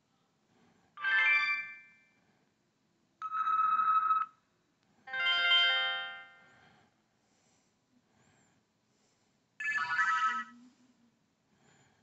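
BlackBerry Curve 8530 notifier tones previewing through the phone's speaker as the tone list is scrolled: four short electronic chimes one after another, the second a single steady beep about a second long and the third a chord that fades out, with a longer gap before the last.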